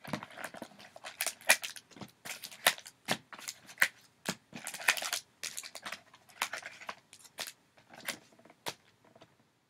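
Foil-wrapped trading card packs being pulled out of a cardboard hobby box and stacked, with irregular sharp crinkles and clicks of the wrappers and the box.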